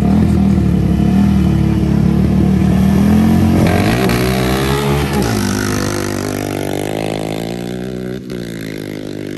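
Two sport ATV engines revving at the start line of a dirt drag race, then launching: the pitch climbs sharply about four seconds in, and the engine sound fades steadily as the quads pull away down the track.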